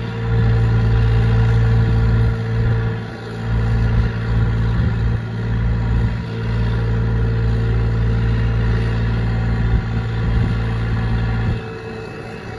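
Hyundai 35Z-9 mini excavator's diesel engine running under load as the boom and bucket dig, a steady low drone with brief dips about two and a half and five seconds in. It eases off about a second before the end.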